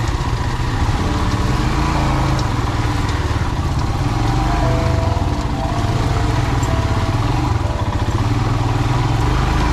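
Motorcycle engine running steadily while riding over a rough off-road track.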